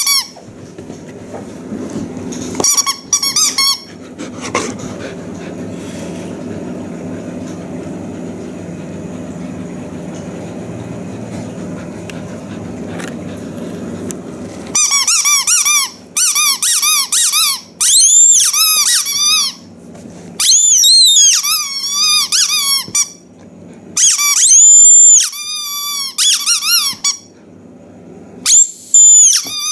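Rubber squeaky toy ball squeezed again and again, giving loud high squeaks that waver and arch in pitch. Some are short and some are held for a second or two, and they come thick through the second half. Before that there is a short burst of squeaks, then a steady low rushing noise for about ten seconds.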